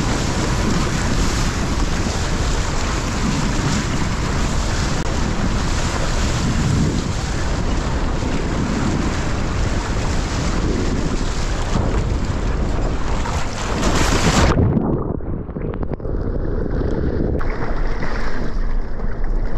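Wind buffeting the action camera's microphone, mixed with water rushing past a windsurfing board under sail, as a loud steady rushing. About fourteen seconds in, the bright hiss cuts off suddenly, leaving a muffled low rumble.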